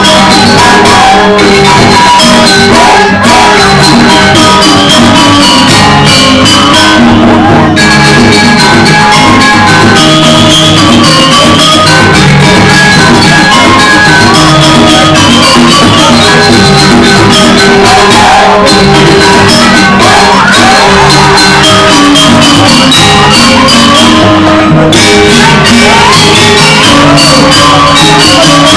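Balinese joged bumbung gamelan music playing continuously, a dense run of quick struck notes, with shouts and whoops from people over it.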